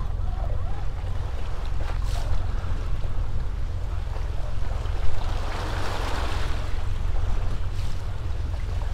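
Wind rumbling on the microphone over water washing against a small boat's hull, with a louder wash of water about six seconds in.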